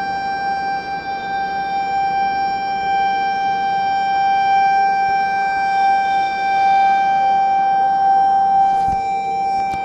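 Train locomotive horn sounding one long, steady blast at a single unchanging pitch.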